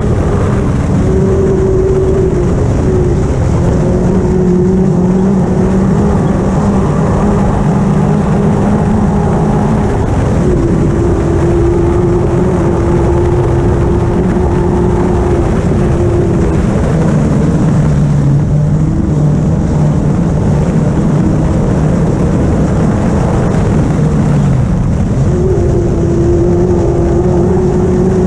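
Off-road racing buggy's engine heard from inside the car at sustained speed on a dirt track, with constant rumble from the tyres and chassis. The engine note holds steady, steps down in pitch twice and rises again near the end.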